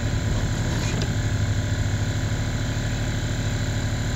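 A steady low hum runs throughout, and about a second in there is a faint scrape of a flat file drawn along the top of a chainsaw bar's rails to dress them flat.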